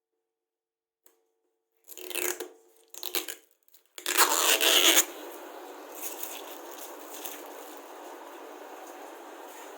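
Washing machine starting its test run: a few short bursts of noise, the loudest about four seconds in, then a steady hiss of water running into the machine through its inlet.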